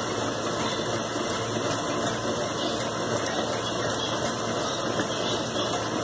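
Electrolux LT15F top-load washing machine agitating a load of clothes in sudsy water, with a steady mechanical hum from its motor and agitator.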